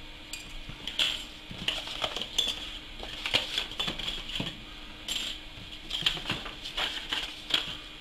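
Hard plastic model-kit parts and sprues clicking and clattering against each other as they are handled and sorted, in a string of irregular sharp clicks that starts about a second in and stops shortly before the end.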